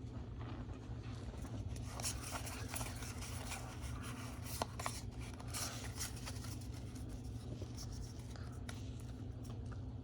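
Pokémon trading cards being handled and slid against each other: faint scraping and scattered small ticks over a steady low hum.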